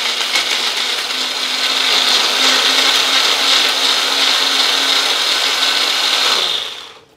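Small electric mixer-grinder running at full speed, grinding chopped raw mango into a paste. It runs steadily, then is switched off about six and a half seconds in and spins down quickly.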